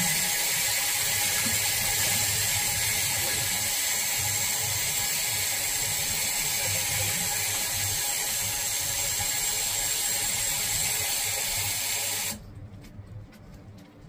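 Tap water running steadily into a sink onto a hand and a soapy lump, shut off abruptly about twelve seconds in. After that come only faint wet clicks as the foam is squeezed in the hand.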